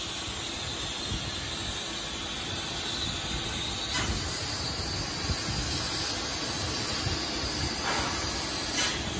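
CNC laser cutter cutting 15 mm steel plate: a steady hissing rush from the cutting head, with a faint low hum and an occasional light click.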